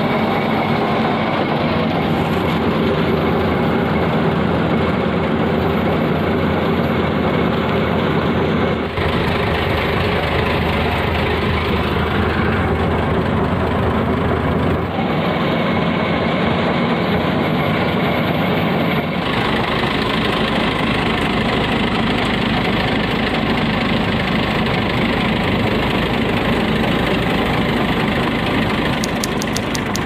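Komatsu bulldozer's diesel engine idling steadily.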